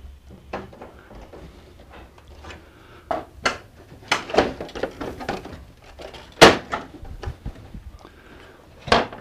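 The plastic top cover of an HP Designjet 500 plotter being lined up on its clips and snapped into place: a string of plastic knocks and clicks, the loudest sharp snap about six and a half seconds in.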